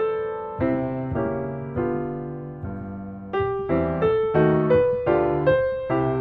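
Background piano music: notes and chords struck and dying away, slow and spaced at first, then coming quicker from about three and a half seconds in.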